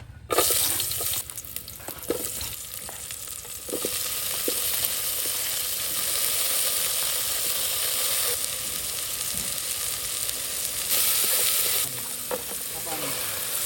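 Steady sizzling hiss with scattered light clicks and taps.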